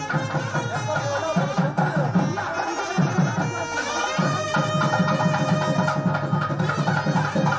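Nadaswaram and thavil wedding music: the nadaswaram plays long held notes over the thavil's fast, steady drumming.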